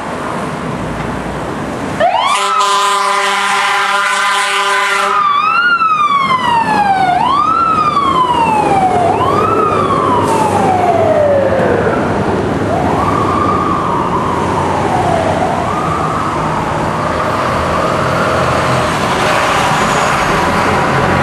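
FDNY fire truck sounding its horn in one blast of about three seconds, then its siren rising quickly and falling slowly over and over as it responds.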